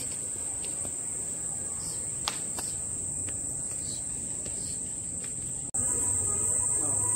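Crickets chirring in a continuous, steady high-pitched drone. It gets louder after a break about two-thirds of the way in.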